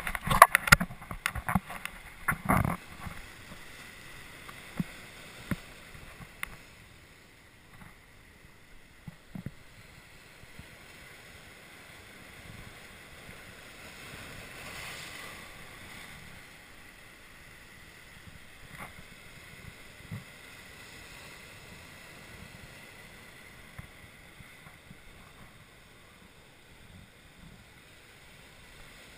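Surf breaking and washing over rocks, a steady wash that swells once about halfway through, picked up by a waterproof action camera housing. Several sharp knocks and splashes against the camera in the first few seconds, with a few more scattered later.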